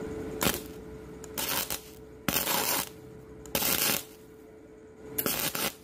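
Gasless MIG welding arc on steel, from a Weldcom V2000 welder running flux-cored wire: five short crackling bursts, each under a second, about one a second.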